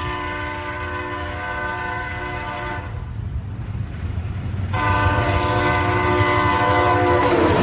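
A loud, steady horn-like chord of several held tones sounds twice, each for about three seconds. A low rumble runs underneath and carries on alone in the pause between the two blasts.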